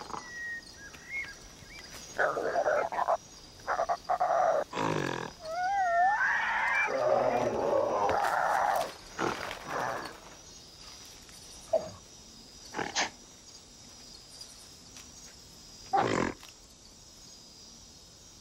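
Apes calling: a string of grunts, hoots and wavering, rising cries, densest for a few seconds near the middle, then a few scattered short calls. A faint steady high-pitched hum runs underneath.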